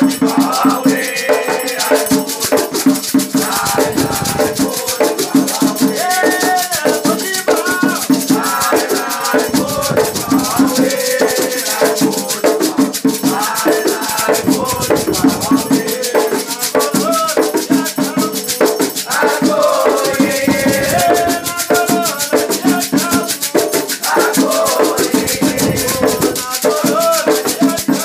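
Afro-Brazilian Batuque ritual music: voices singing chants over continuously shaken rattles, with drumming underneath that drops out and returns several times.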